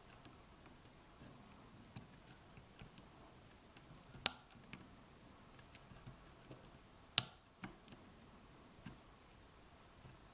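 Lock pick working the pin stack inside an Abus 83/45 padlock: faint scattered ticks, with two sharper clicks about four and seven seconds in.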